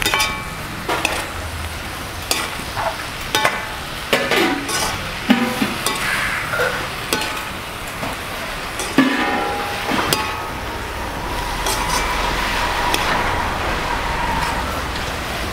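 Sliced tomatoes and onions sizzling in a metal kadai while a perforated metal ladle stirs them, scraping and clinking against the pan at irregular intervals.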